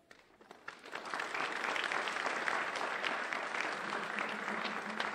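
Congregation applauding in a church hall, dense clapping that builds up over the first second and then goes on steadily.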